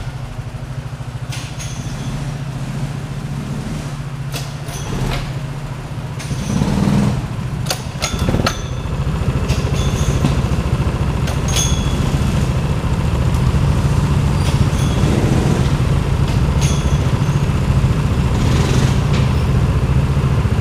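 Small go-kart engines idling, a steady low drone with a few scattered clicks and knocks; the idle grows louder about nine seconds in.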